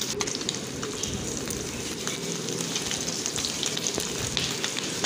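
Cubes of egg paneer frying in hot mustard oil in a kadhai: a steady sizzle with fine crackling.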